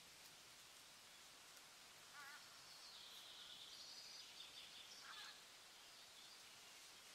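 Faint outdoor ambience: a steady soft hiss with a few distant bird calls, a short warbling call about two seconds in and higher calls over the next few seconds.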